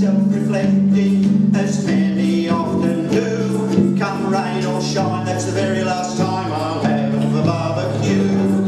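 A man singing a comic folk song while strumming a ukulele, with a steady low bass part underneath that changes note every second or so.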